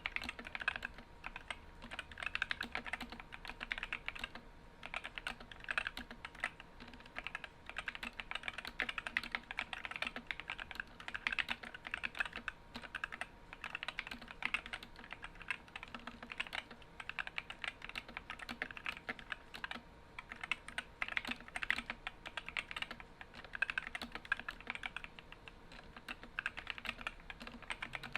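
Fast continuous typing on an Epomaker SK64 60% mechanical keyboard with stock, unlubed Gateron optical red linear switches and ABS keycaps: a rapid clatter of key presses, with brief pauses between runs.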